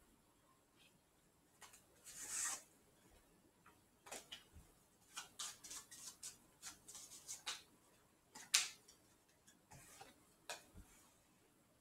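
Playing cards being handled: quiet, irregular clicks and snaps of cards against the deck, with a brief rustle about two seconds in and a sharper snap past the middle.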